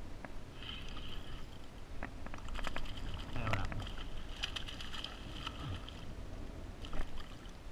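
A hooked fish splashing and thrashing at the surface beside a kayak as it is released, with a flurry of splashes and rattles about two and a half to four seconds in. A single sharp knock near the end.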